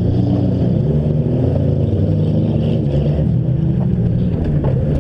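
Several demolition derby car engines running together, their pitches rising and falling as they rev, with a few sharp knocks near the end.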